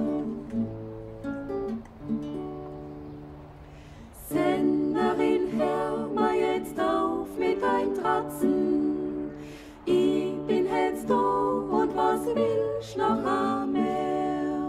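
Alpine folk song in dialect German: a small vocal group, women's voices in close harmony, singing to acoustic guitar. The music is soft for about the first four seconds, then the voices come in strongly.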